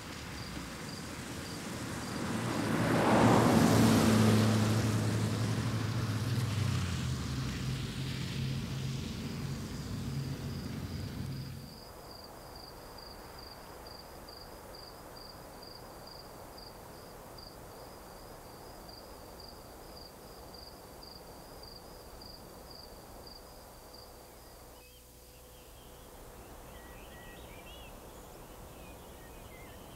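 A car approaches and passes on a wet road: its engine and tyre hiss swell to a peak a few seconds in, then fade. About twelve seconds in the sound cuts to steady night insect chirping, a high pulse repeating evenly, and near the end a few bird chirps join in.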